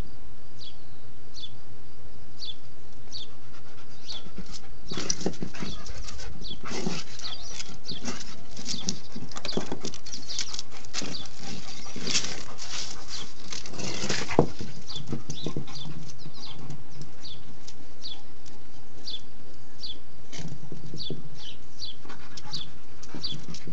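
A dog whines in short, high, repeated whimpers while pawing and nosing a rock around on concrete. The rock scrapes and clatters, busiest in the middle of the stretch, with one sharp knock about fourteen seconds in.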